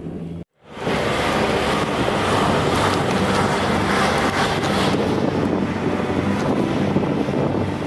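The sound cuts out for a moment near the start, then a steady rush of wind noise on the microphone over a running vehicle.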